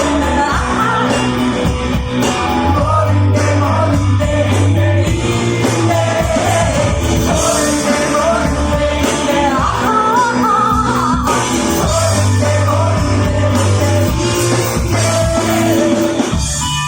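Live rock band playing a song: singing over drums, cymbals and a heavy bass line, with a short dip in the playing near the end.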